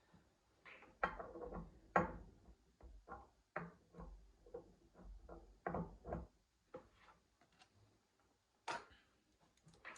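Irregular, faint clicks and knocks of hand tools and small metal tap parts being handled, a dozen or so, the loudest about one and two seconds in.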